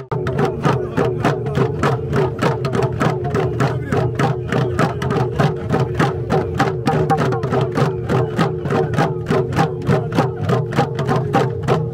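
Kundu hourglass drums beaten in a fast, even rhythm of about five strokes a second, under a group of men chanting together on a steady held pitch.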